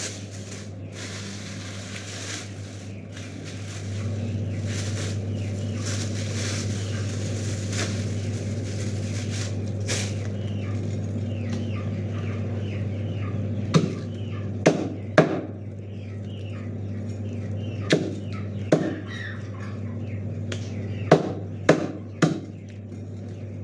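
A plastic bag rustling, then a meat cleaver chopping raw chicken on a plastic cutting board: about eight sharp chops in three short groups in the second half, over a steady low hum.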